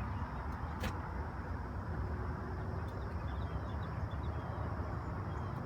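Steady low background rumble with a single sharp click a little under a second in.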